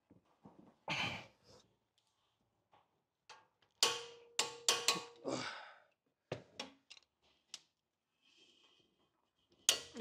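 A few short knocks and clunks as a long torque wrench is heaved on a front brake caliper mounting bolt, which is being tightened toward a very high 275 Nm. The sounds come in a cluster a few seconds in, with lighter ticks after it and a louder clunk near the end.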